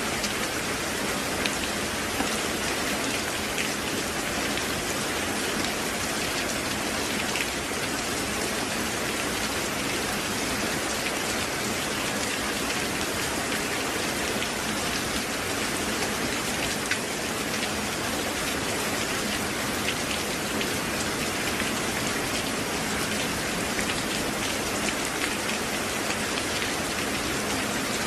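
Steady rain falling, an even hiss with scattered louder drops ticking now and then.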